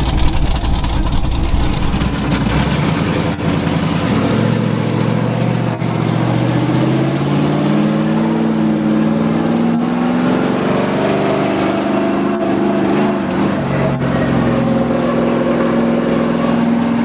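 Vehicle engine running loud. A low rumble at first gives way, about four seconds in, to a rising engine note that climbs slowly and steadily in pitch.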